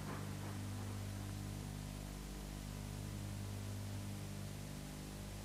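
Steady mains hum with an even tape hiss on a VHS-transferred soundtrack. The last faint steam locomotive exhaust beats die away right at the start.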